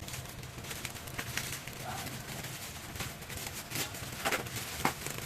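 A shipping parcel being handled and opened by hand, with scattered crinkling clicks and rustles of the packaging.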